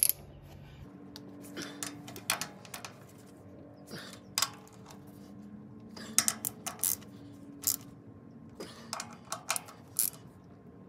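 Socket ratchet wrench clicking in short bursts as the bolts of a tractor's brake housing cover are tightened, with pauses between strokes. A faint steady hum sits underneath.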